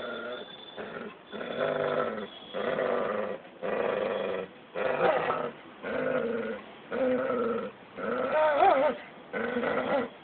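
Dog growling in a fight with a cat: a run of short growls, one with each breath, about one a second. The loudest comes about eight seconds in, with a wavering pitch.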